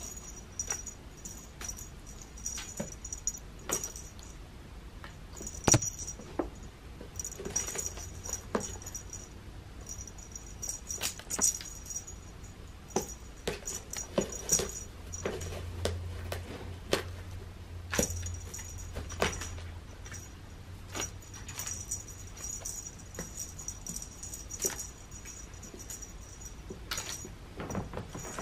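A cat playing with a dangled wand toy on a Scratch and Roll arch groomer: irregular light taps, scrapes and rustles, with a faint high ringing that comes and goes.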